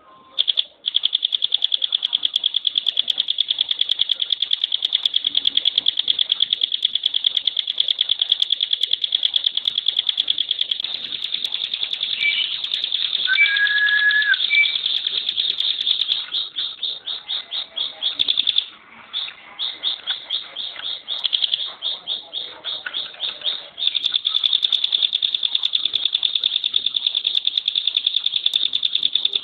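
Ciblek gunung (hill prinia) singing a long, extremely fast trill of rapidly repeated notes on one high pitch: the tight 'tembakan' song. Past the middle it breaks into a string of short separate trills, then runs unbroken again near the end, with a brief lower whistle about halfway through.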